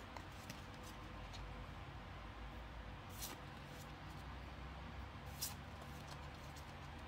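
Pokémon trading cards sliding over one another as a pack is thumbed through card by card: faint rustles with two crisper swishes, about three and five and a half seconds in.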